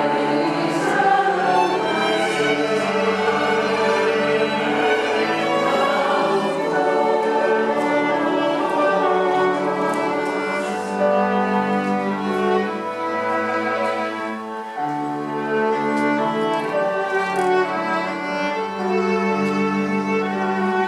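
Choir with a string ensemble performing a slow choral piece: bowed strings, cellos and violins, holding sustained chords that change every second or two.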